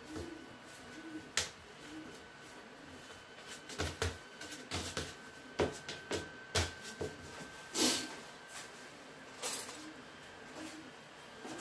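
Dough being handled and shaped on a metal pizza pan: scattered knocks and taps, the loudest about eight seconds in. A bird coos softly and repeatedly in the background at the start and again near the end.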